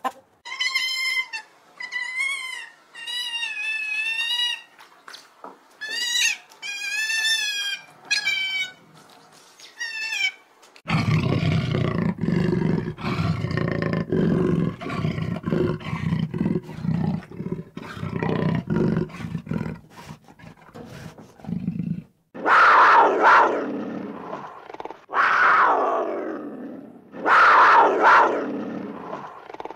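Animal calls from more than one animal in turn: high, wavering calls for the first ten seconds or so, then a long low rumble of rapid pulses, then three loud roars, each falling in pitch.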